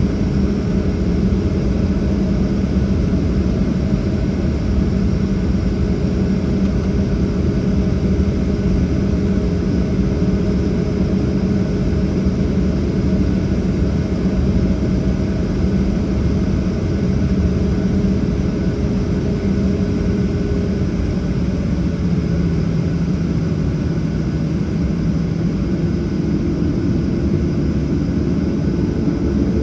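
Cabin noise of a Boeing 737-800 taxiing, heard from a seat over the wing: its CFM56-7B turbofans running at taxi power, a steady rumble with a low hum whose pitch steps down slightly about two-thirds of the way through.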